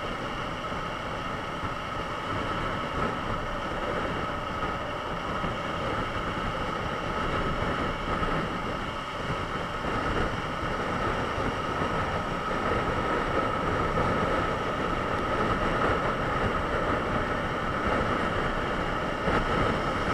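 Steady rush of wind together with the drone of a Honda CBR954RR's inline-four engine cruising at motorway speed, heard from a camera on the moving motorcycle. It grows slightly louder as the bike picks up speed.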